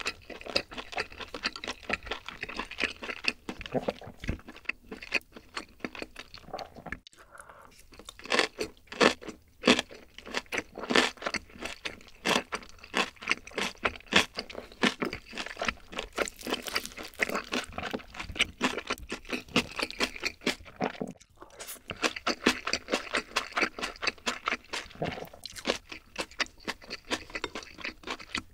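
Close-miked chewing and mouth sounds of a person eating, a steady run of quick, wet clicks and crunches.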